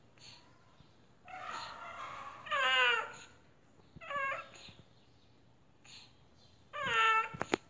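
Tabby cat giving three strange, drawn-out meowing calls, each sliding down in pitch: a long one with a rough start, a short one, then a loud one near the end. The owner finds the noises strange and suspects the cat is sick.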